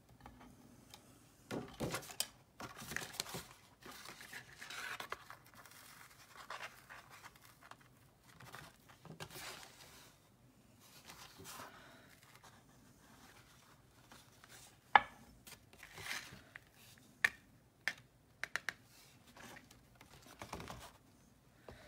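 Hands handling paper and card at a craft table: faint, intermittent rustling and scraping, with a few sharp clicks about two-thirds of the way through.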